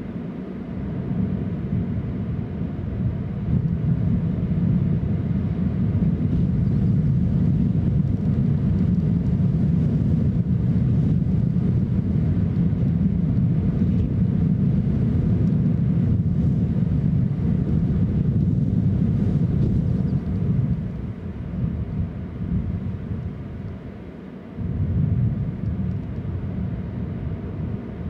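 Wind buffeting the microphone: a steady low rumble that eases off about three quarters of the way through, then gusts up again briefly.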